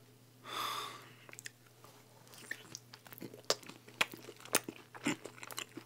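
Close-up chewing and biting of a slice of thin-crust cheese pizza: many small, irregular crisp crunches. A short breathy hiss comes about half a second in, before the crunching starts.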